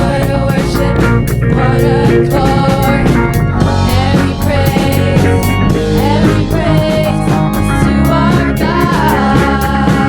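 Band music in a rock style with a steady beat, and a lead melody line that slides and bends in pitch over sustained chords.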